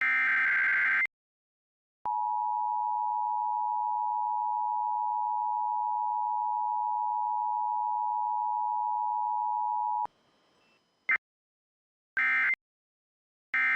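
Emergency Alert System audio. A SAME digital header burst warbles for about the first second. About a second later the two-tone attention signal sounds steadily for about eight seconds and cuts off abruptly, followed by a faint hiss and short, chirpy data bursts near the end.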